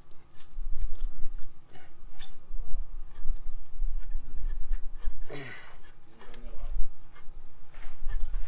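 Stock muffler of a Royal Enfield Interceptor 650, with its chrome cover, being twisted left and right by hand on the exhaust pipe to work it loose: a run of metal scraping, rubbing and clicking.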